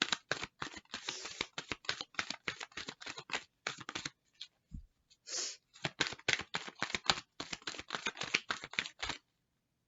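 Tarot cards being shuffled by hand: a quick, uneven run of short papery slaps and flicks that stops about nine seconds in.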